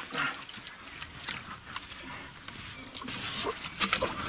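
Hand digging in waterlogged clay: wet mud squelching and muddy water sloshing, with short scrapes and splashes, the loudest about three and four seconds in.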